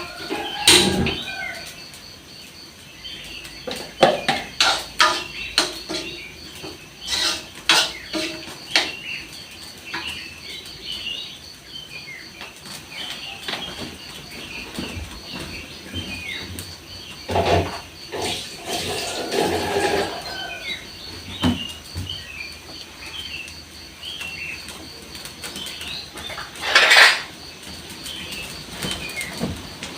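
Metal kitchen utensils and pans clinking and knocking at irregular intervals, with small birds chirping throughout.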